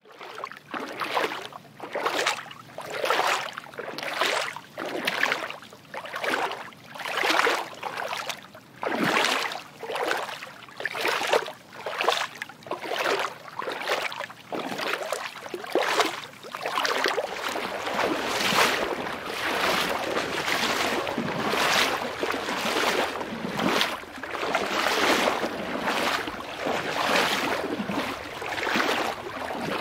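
Footsteps splashing through shallow water, about one step a second. From about halfway a steady rush of flowing water joins in, with the splashing steps going on over it.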